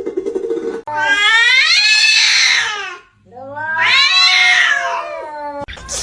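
Domestic cat caterwauling: two long, drawn-out yowls, each rising and then falling in pitch, with a short break between them.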